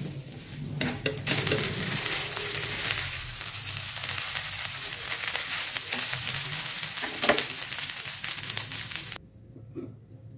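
White fried rice sizzling in a nonstick wok as a silicone spatula stirs and tosses it, with scraping and light knocks of the spatula against the pan. The sizzle cuts off suddenly near the end.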